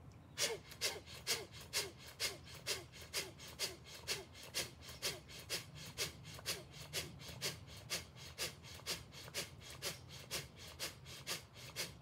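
Rapid, forceful pranayama breathing (bhastrika/kapalabhati breath infusion) through the nose: a steady run of sharp breaths, about two a second, starting about half a second in.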